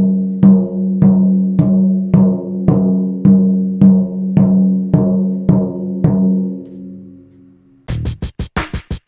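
Tom drum tapped about twelve times, roughly twice a second, with a soft felt mallet, each stroke ringing at the same steady pitch: the head has been tuned even all round. The ringing fades out, and near the end a fast stuttering run of short clicks sets in.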